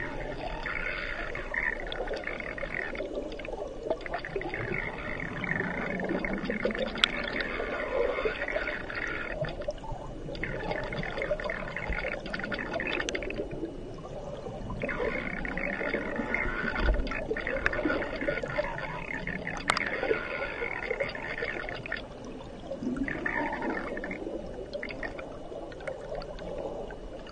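River current heard underwater: a steady rushing of water, with a higher hiss that comes and goes every few seconds.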